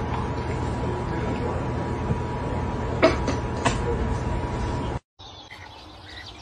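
Steady background room noise with a faint constant hum, broken by two short faint sounds about three and three and a half seconds in. Near the end it gives way to a quieter background.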